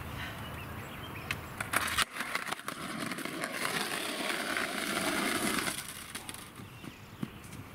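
Skateboard: a few sharp wooden knocks of the board about one and a half to two seconds in, then its wheels rolling over rough pavement for a few seconds before fading out, with a few light knocks near the end.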